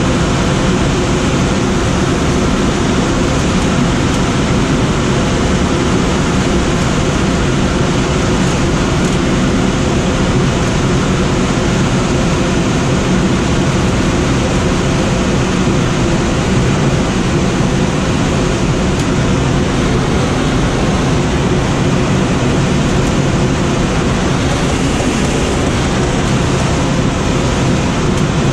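Steady rush of air over a Schweizer SGS 2-32 glider in engineless soaring flight.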